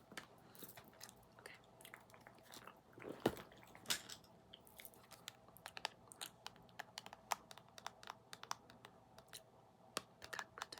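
Close-miked ASMR trigger sounds: quiet, irregular clicks and crackles, the loudest pair about three and four seconds in.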